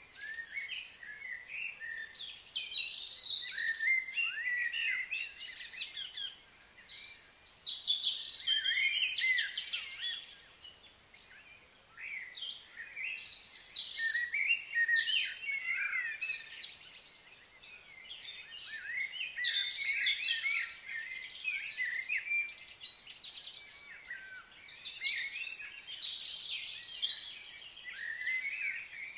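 Several birds singing and chirping at once: quick, varied chirps and trills that come in clusters, with a few brief lulls.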